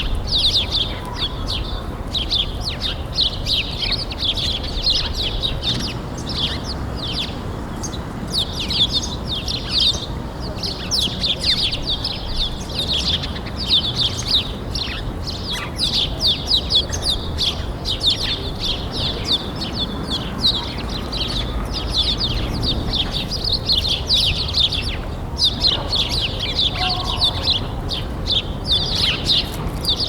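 Many small birds chirping together, a dense, continuous chatter of short high chirps over a steady low background rumble.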